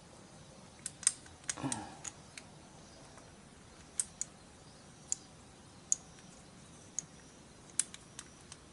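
Small metal exhaust fittings clicking and tapping against the exhaust port of a Honda CB750 engine as they are worked into place by hand, about a dozen sharp, irregular ticks. A brief low grunt comes about a second and a half in.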